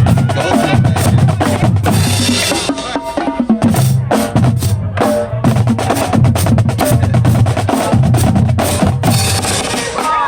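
High school marching drumline playing together: rapid snare drum strokes and rolls over pounding bass drums.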